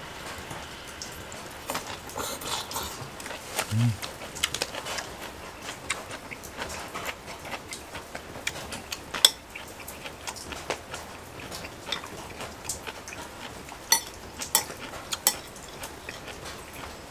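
Eating sounds: metal chopsticks clicking and scraping against a plate and a small bowl, with scattered sharp clinks, the loudest about nine and fourteen seconds in.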